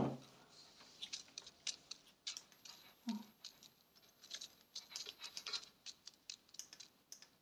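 Faint, irregular light clicks and ticks, several a second, with one short low sound about three seconds in.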